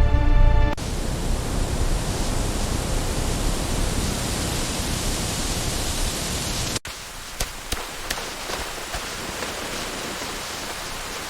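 Music stops just under a second in, giving way to a steady, even rushing hiss. About seven seconds in it cuts abruptly to a softer hiss with scattered sharp clicks.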